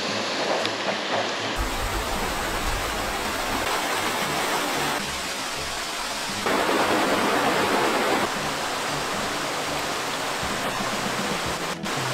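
Steady rush of water from a mountain stream and small waterfalls, louder for a couple of seconds in the middle.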